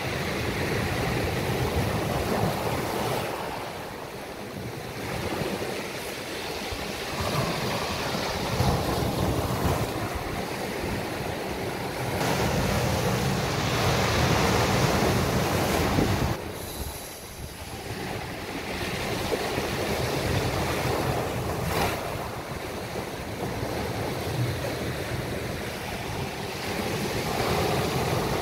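Mediterranean sea waves breaking and washing up the beach, the surf swelling and falling back every several seconds.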